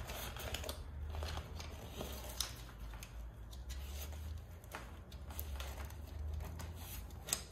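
Handling sounds of a fabric stem bag and its strap being threaded around a bicycle stem: scattered rustles, scrapes and light clicks of strap and bag material, over a low steady hum.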